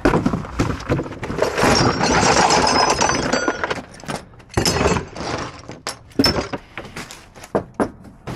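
Cardboard boxes of small metal fittings being rummaged and shifted: cardboard scraping and metal parts clinking and rattling. The rattling is densest for about two seconds, with short metallic rings. Scattered single knocks and clicks follow.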